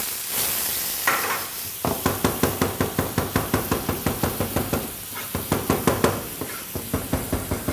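Chef's knife rapidly chopping garlic on a plastic cutting board, even knocks at about five or six a second in runs with short pauses. It starts about two seconds in, over onions sizzling in a hot sauté pan.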